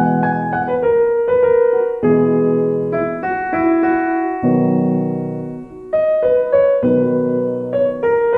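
Piano music: a melody of single notes over held chords, with a new low chord struck about every two seconds.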